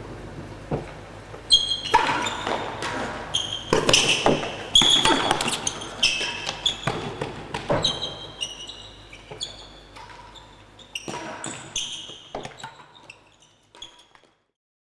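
Real tennis being played on an indoor court: a quick run of hard knocks of the ball off rackets, walls and floor, two or three a second, mixed with sharp shoe squeaks on the floor. The sound fades out to silence near the end.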